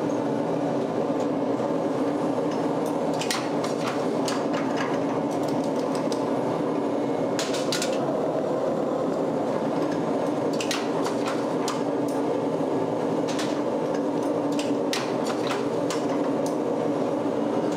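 Steady running of a flywheel-driven forging press in a metal shop. Clusters of sharp metal clanks and knocks come every few seconds.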